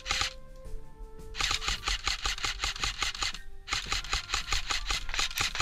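Airsoft electric rifle firing long full-auto bursts, a rapid even stream of mechanical shots with short pauses between bursts.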